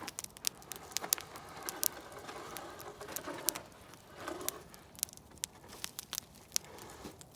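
Wood campfire crackling: irregular sharp pops and snaps over a soft hiss of the flames, the hiss swelling for a few seconds mid-way.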